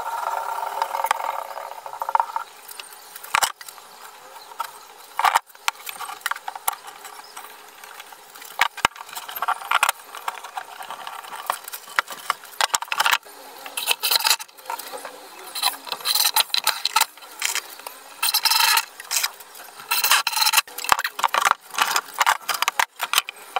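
Workshop handling noises of wood and metal: irregular knocks, clicks and rattles, with scraping that comes more often in the second half.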